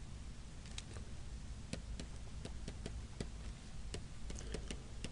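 Faint, irregular light clicks, several a second and more frequent after the first second, over a steady low hum.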